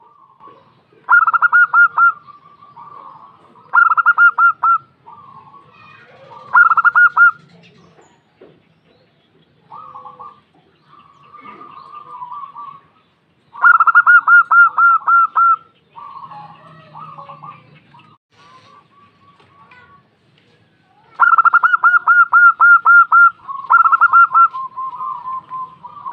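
Zebra dove (perkutut) calling: about five loud bursts of rapid staccato cooing notes, the longest two about halfway through and near the end, with softer, lower coos in between.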